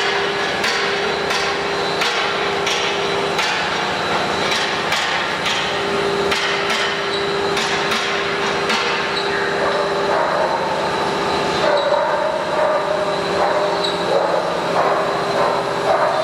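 CNC router cutting wood: steady spindle whine over cutting noise, with sharp clicks repeating about every 0.7 s through the first half and a wavering higher whine in the second half.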